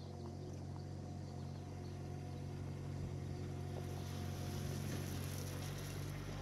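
Skid steer engine running steadily under load, with a hiss that grows about halfway through.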